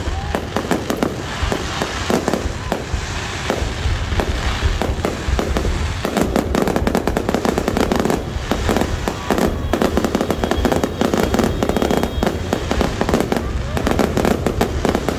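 Fireworks display: a rapid, unbroken barrage of bangs and crackling from the shells bursting overhead.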